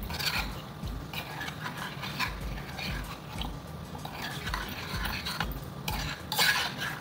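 Milk poured into a stainless steel saucepan, then a metal spoon stirring the milky mixture, with irregular scraping and clinking against the pan; the loudest clinks come about six and a half seconds in.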